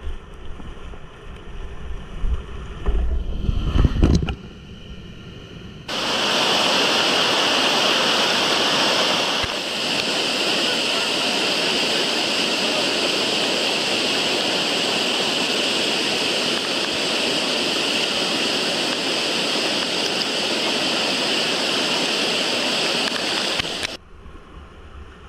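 River whitewater rushing past a kayak, with wind rumbling on the microphone and louder around three to four seconds in. About six seconds in, a much louder, steady rush of water pouring over a waterfall takes over. It stops suddenly near the end, and the quieter river and wind noise return.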